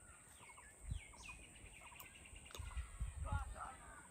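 Small birds chirping, with one descending trilled call, against faint outdoor background noise. There are a few low rumbles, about a second in and again around three seconds.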